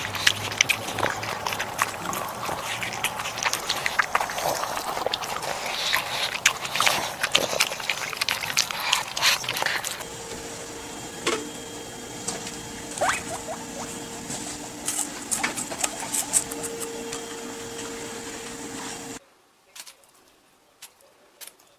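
Animals eating watermelon close to the microphone: a dog's wet chewing and crunching of a watermelon slice, dense sharp clicks. About ten seconds in it changes to a guinea pig eating in wood-shaving bedding, scattered clicks over a faint steady tone, and near the end it drops quieter to a few sharp pecks from a rooster.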